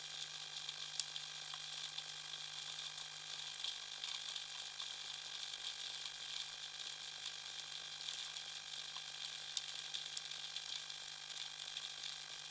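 Underwater reef ambience: a dense, continuous crackle of snapping shrimp, countless tiny clicks with a few sharper ones standing out.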